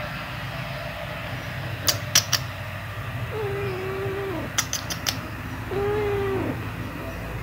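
Cat meowing twice, each meow drawn out for about a second at a steady pitch and dropping at the end. Short runs of sharp clicks come before and between the meows, over a steady low hum.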